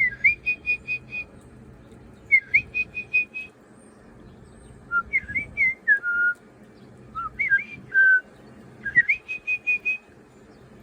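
A woman whistling a bird call: five phrases, each a quick up-and-down slur followed by a fast run of four or five short repeated notes, with a couple of phrases ending in lower, longer notes.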